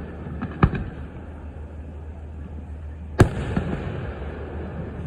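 Aerial fireworks going off: two sharp bangs about two and a half seconds apart, the second the louder, over a steady low hum.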